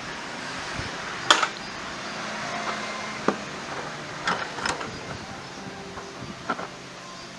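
A few separate sharp clinks and knocks of hard objects being handled, the loudest about a second in, over a faint steady hum.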